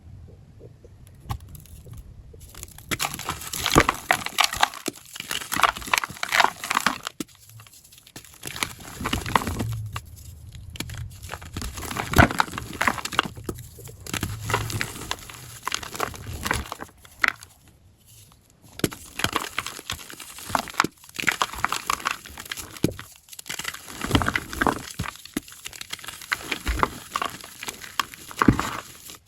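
Crunchy blocks of gym chalk being crushed, a run of crumbly crunches and crackles that come in bursts with short pauses between, played back at double speed.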